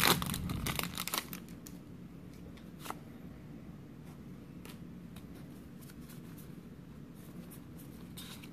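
Foil trading-card booster pack wrapper crinkling as the cards are pulled out, for about the first second. Then quieter handling of trading cards being slid and flicked through, with a few faint clicks.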